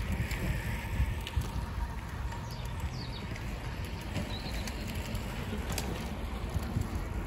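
Wind buffeting the microphone and a low rumble of tyres on asphalt from a bicycle being ridden, with a few light clicks.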